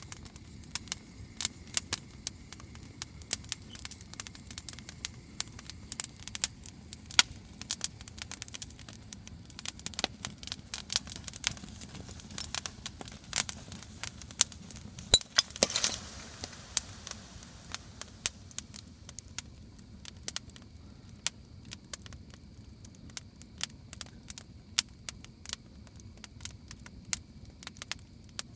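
Wood campfire burning, crackling with many sharp, irregular pops over a low rumble, and a brief hiss about halfway through.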